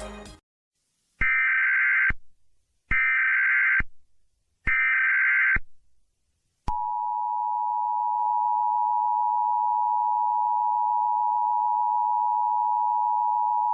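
Emergency Alert System (EAS) alert opening: three short SAME header data bursts about a second apart, then, about seven seconds in, the two-tone attention signal starts as a steady dual tone.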